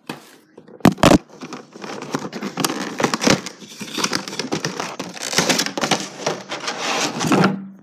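A Funko Pop box being opened: cardboard and plastic packaging crinkling and crackling as it is pulled apart, with two sharp knocks about a second in.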